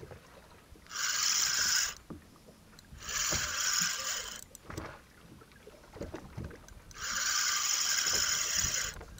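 Spinning reel's drag slipping as a hooked fish pulls line against the bent rod: three runs of high, even buzzing, starting about one, three and seven seconds in, the last and longest about two seconds.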